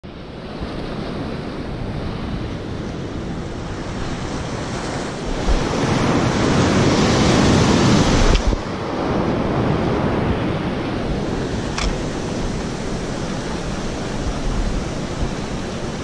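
Ocean surf breaking and washing over a shallow reef shelf. A wave swells louder about a third of the way in and drops away suddenly around halfway through.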